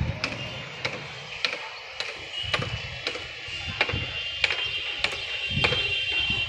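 Sharp knocks repeating evenly, about one every 0.6 seconds, with a steady high-pitched drone behind them.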